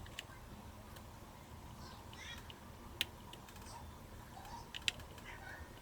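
Three or four sharp, separate clicks from small tools and parts being handled while a Canon T6/1300D camera is taken apart, over faint background sounds.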